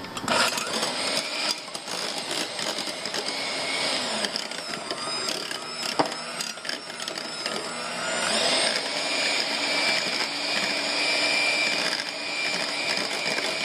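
Electric hand mixer running, its beaters mashing ripe bananas in a glass measuring jug, with a sharp knock about six seconds in; it gets louder from about eight seconds in.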